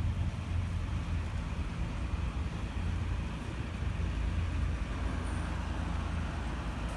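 Steady low hum of a heavy diesel engine idling, with road traffic noise.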